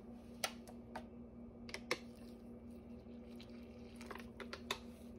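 Kitchen handling sounds while water is added to flour and cornmeal in a ceramic bowl: a few sharp, light clicks and taps in small clusters, over a steady low hum.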